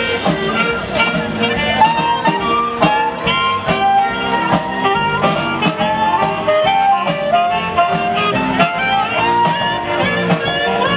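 Swing jazz band playing an instrumental passage: a melodic lead line of held, sliding notes over a steady guitar and drum rhythm.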